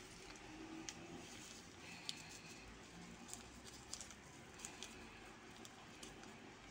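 Faint paper rustling and a few light ticks as paper sachets of vanillin sugar are handled and shaken out over flour in a mixing bowl.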